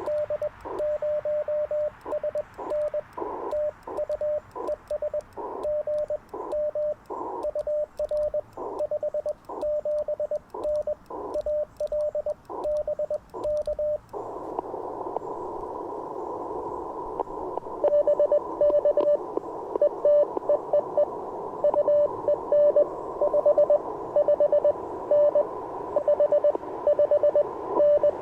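Morse code on an Icom IC-705 transceiver. For about fourteen seconds the operator sends with a paddle key: the radio's sidetone keys on and off with faint clicks and short bursts of receiver hiss in the gaps. Then the receiver opens to steady band hiss, and a few seconds later another station's Morse comes in louder.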